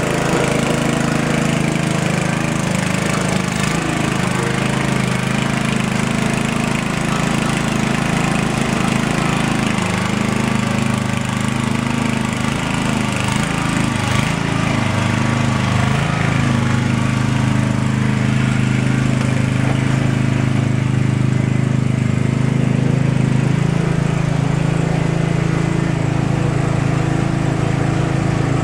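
1970s Ariens Sno-Thro snowblower's 5-horsepower Tecumseh single-cylinder engine running at full throttle while clearing snow. The engine pitch wavers and dips for a few seconds near the middle as the machine takes in snow, then runs steady again.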